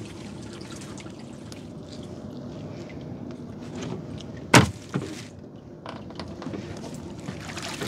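Water dripping and sloshing beside a small fishing boat over the steady low hum of its engine, with one sharp knock about four and a half seconds in and a couple of lighter knocks just after.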